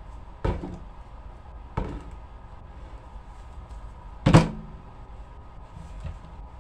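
Three dull thumps on a tabletop, the third the loudest, with a fainter knock near the end, from objects being handled and set down.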